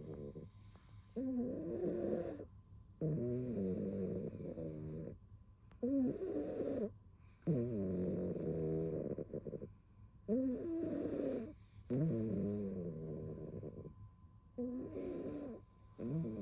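Domestic cat snoring in its sleep, a cat with no nose: a pitched, rasping snore on each breath, repeating roughly every two seconds with short pauses between.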